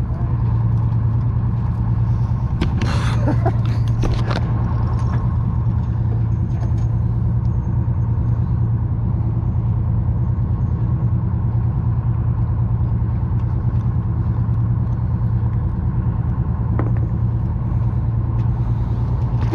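Charter boat's engine running with a steady low hum. A few short clicks about three to four seconds in.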